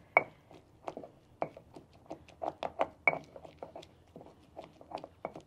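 Stone pestle grinding roasted tomato-and-chile salsa in a volcanic-stone molcajete: irregular wet crushing strokes and knocks of stone on stone. Two sharper knocks ring briefly, one near the start and one about three seconds in.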